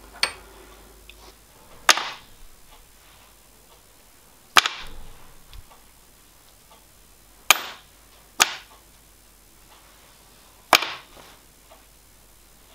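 Six sharp metallic clacks spread unevenly, each dying away quickly, as small steel locomotive drive cranks are set down one at a time on a workbench.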